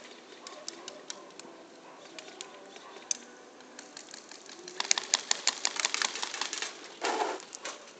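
Airsoft guns firing: scattered single shots, then a rapid string of shots about five seconds in, lasting nearly two seconds. A short rough burst of noise follows.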